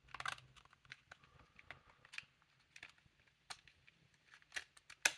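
Irregular light clicks and taps of a wooden puzzle box's pieces being handled and rocked, with a small flurry of clicks at the start and a sharper click near the end.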